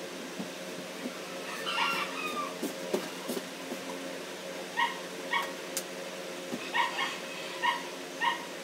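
A small dog whining once, about two seconds in, then yipping in short high calls, roughly two a second, from about five seconds in. A steady low hum runs underneath.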